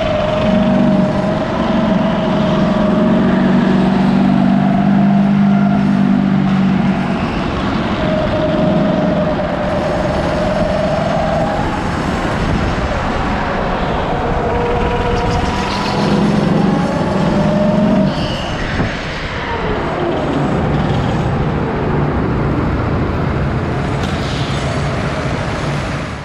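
Go-kart engine running under power, its pitch rising and falling as it speeds up and eases off, dropping noticeably a little past two-thirds through as the kart slows.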